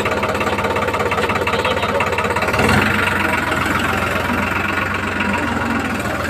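Tractor diesel engine running steadily at idle, a rapid even chugging that grows fuller in the low end about two and a half seconds in.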